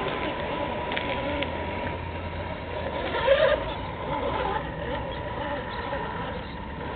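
Tamiya TLT-1 RC rock crawler's electric motor and gears whining steadily as it crawls over rocks, over a low rumble, with a brief louder sound about three seconds in.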